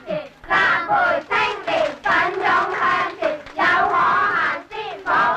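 A group of young voices chanting together in short, rhythmic phrases, like a school cheering squad.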